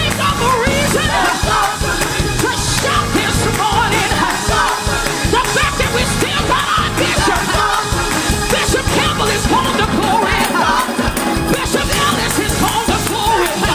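Live gospel music: a lead singer sings into a microphone with a choir behind her and band accompaniment, loud and unbroken.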